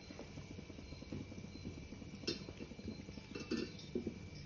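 Faint bubbling and sizzling of a small test drop of urad dal vada batter in hot frying oil, with a few light pops. It shows that the oil is hot enough to fry.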